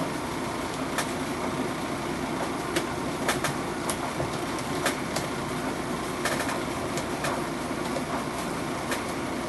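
Small scattered clicks of screws and a screwdriver as screws are driven back into a car door speaker, over a steady low hum.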